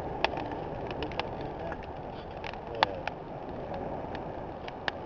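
Campfire crackling: irregular sharp pops and snaps over a steady low hiss.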